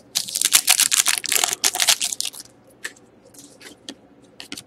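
Foil wrapper of a 2011-12 Panini Titanium hockey card pack crinkling as the cards are pulled out, a rapid crackle for about two and a half seconds. Then a few light clicks as the cards are handled.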